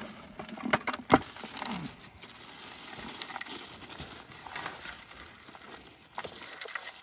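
Plastic zip-top bag crinkling and rustling while loose soil is scooped by hand from a plastic bucket into it. A few sharp clicks and knocks come in the first two seconds, the loudest about a second in.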